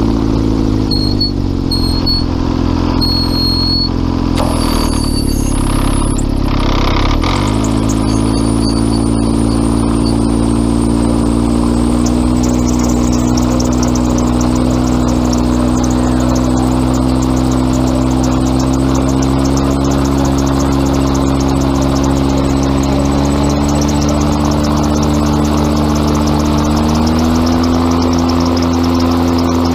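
Gyrocopter's engine and propeller running steadily at low power. The pitch dips briefly about five to seven seconds in and rises a little near the end.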